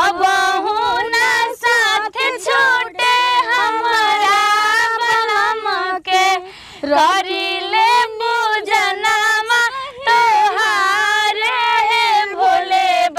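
A high female voice singing a Bhojpuri song in long, wavering held notes, with a short pause between phrases about halfway through.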